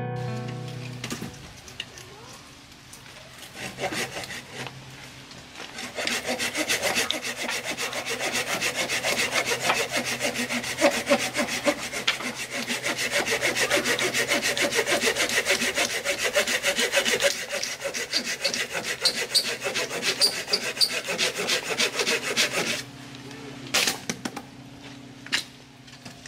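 Hand saw cutting through wood in fast back-and-forth strokes. The sawing is softer and broken up at first, runs steadily from about six seconds in, and stops a few seconds before the end, followed by a few light knocks.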